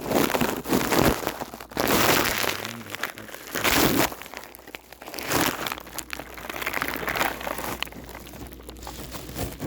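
Handling noise from a cell phone being moved and set in position: rustling and scraping against its microphone, loud for the first few seconds, then quieter.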